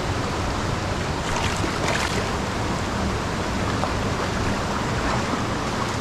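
Steady rush of a mountain headwater stream's flowing water.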